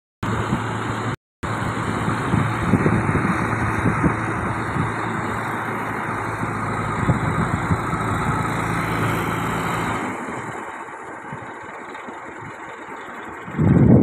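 Diesel engine of an Escorts Hydra 12 mobile crane running steadily as it holds a load on its hook. Around ten seconds in, the engine note drops and the sound gets quieter. The sound cuts out twice for a moment near the start.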